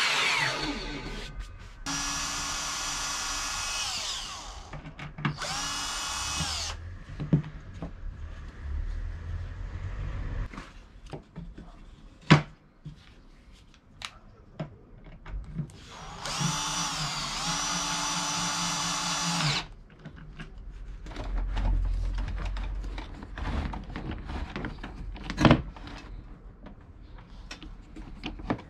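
Cordless drill-driver driving screws into a wooden insert plate, run in three short bursts that each speed up and wind down: one about 2 s in, a shorter one soon after, and a longer one past the middle. Clicks and knocks of handling the screws and wood fall between the runs.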